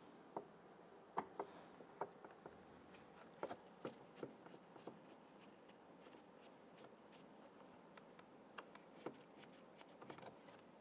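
Faint, irregular clicks and small taps of a Phillips screwdriver backing out small screws from door trim. Most of them come in the first half.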